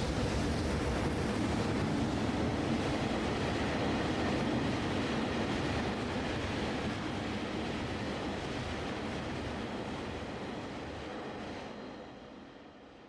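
Freight train passing, a steady rumble of its wagons running on the rails, fading away over the last few seconds.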